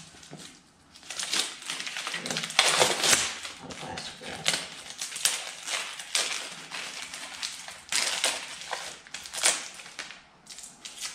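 Wrapping crinkling and rustling in irregular bursts with small clicks as new snowmobile carbide runners are unwrapped and handled by hand.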